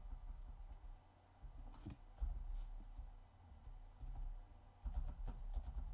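Faint computer keyboard typing: scattered keystrokes in short clusters, with soft low thuds among the clicks.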